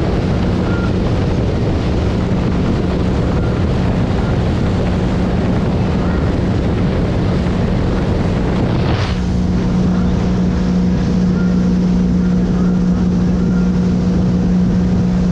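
Sea Ray ski boat's engine running steadily at cruising speed, with wind buffeting the microphone. About nine seconds in there is a brief rush of noise, and after it the engine note carries on steadier.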